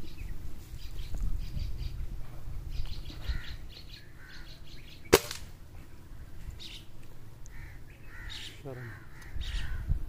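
Birds calling and chirping in the trees, with a single sharp crack about halfway through that is the loudest sound.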